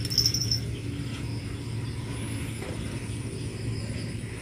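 An insect trilling in quick high pulses for about half a second at the start, over a steady low rumble.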